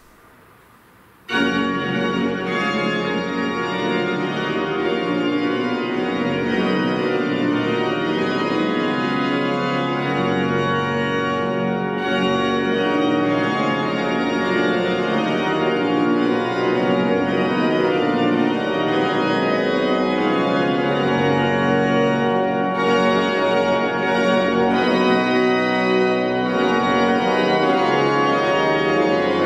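Church organ playing a hymn tune, starting suddenly about a second in and carrying on with full, sustained chords.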